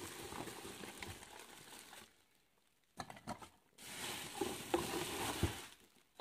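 Plastic bubble wrap rustling and crinkling as hands pull it open, in two stretches with a short pause and a few crackles between them.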